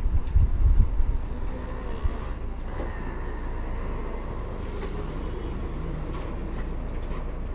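Bus running on the road, a low engine and road rumble. It surges loudly with bumps for the first second and a half, then settles into a steady drone.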